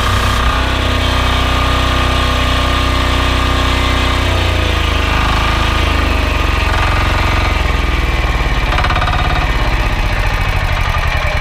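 Loncin 460 cc single-cylinder diesel engine of a belt-driven pressure washer running steadily with a low, throbbing note. A high hiss stops just after the start, and the engine's pitch shifts around four to five seconds in.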